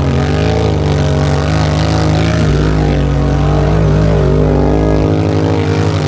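Small 750cc engine in a Power Wheels-based 4x4 revving up and down under load as it spins donuts in mud, its pitch rising and falling.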